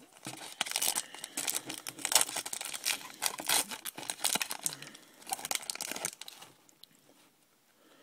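Foil wrapper of a 2007 Upper Deck Future Stars baseball card pack being torn open and crinkled in the hands: a dense crackle that stops about six seconds in.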